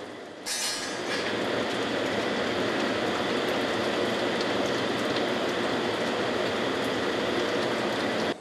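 Molten cast iron pouring in a stream from a tilted furnace spout into a ladle, with a steady rushing, crackling noise. The noise begins with a brief sharper hiss about half a second in.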